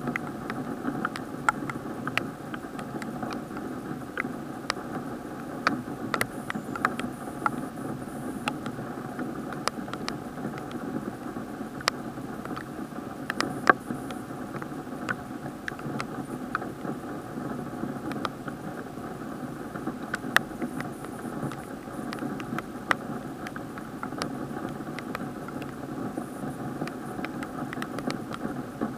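Raindrops ticking irregularly on the plastic waterproof housing of an action camera, over a steady, muffled rush of rain and wind heard through the sealed case.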